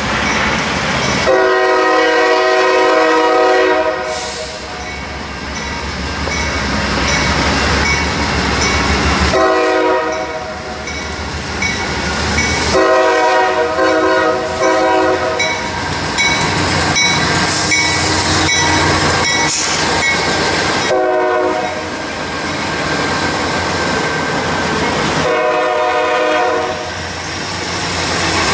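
Multi-chime air horn of a Norfolk Southern GE D9-44CW diesel locomotive sounding five blasts for a grade crossing, over the steady rumble of the approaching freight train.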